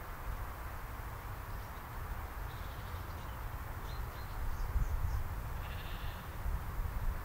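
Faint bleating of sheep out of sight, with a few faint high bird chirps, over a steady low rumble of wind on the microphone.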